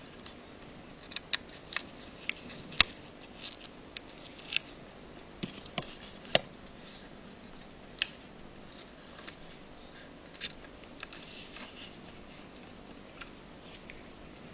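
Irregular light clicks and taps of small hand tools and tiny metal phone parts being handled while an iPhone 5 is put back together, about fifteen sharp ticks spread unevenly, the loudest a few seconds in.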